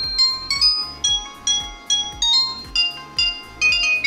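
Swiss One Snow White mini phone playing one of its built-in ringtones through its speaker: a quick, bell-like electronic melody of short notes at several notes a second.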